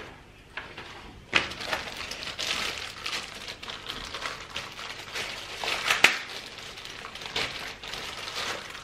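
Clear plastic packaging bag crinkling and rustling as the keyboard sealed inside it is handled and lifted, with sharper crackles about a second and a half in and again about six seconds in.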